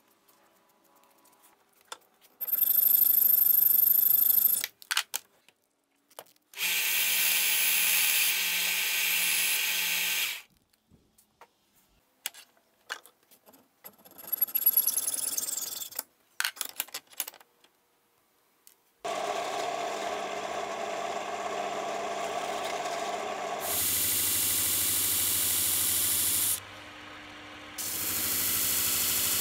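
A run of workshop tool sounds: two bursts of power drilling through small hardwood pieces, boring the pin holes; then hacksaw strokes through steel nails held in a vise, around the middle. After that a disc sander runs steadily and grinds wood in two loud stretches near the end, with a short quieter break between them.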